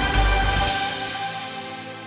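Background music of held chords, fading out. The bass drops out less than a second in and the rest dies away steadily.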